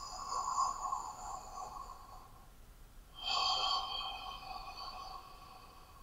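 A person breathing heavily through an open mouth: two long breaths, one at the start and another about three seconds in, each lasting about two seconds.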